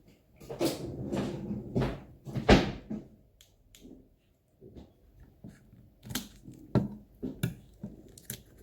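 Hard objects being handled and set down: a string of separate knocks and clatters, the loudest about two and a half seconds in, with a quieter gap in the middle.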